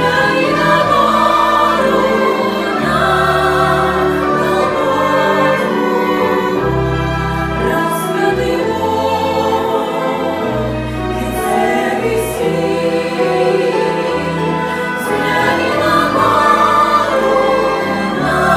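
Choral music: a choir singing sustained lines in a classical or sacred style, with a bass underneath.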